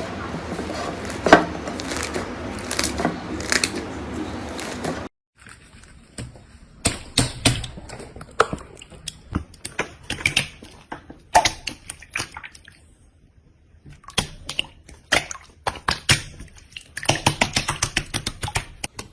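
Hands squeezing and pressing slime, with irregular sticky clicks and crackles as it is worked. The sound cuts abruptly about five seconds in to a quieter take of the same kind of clicking and popping.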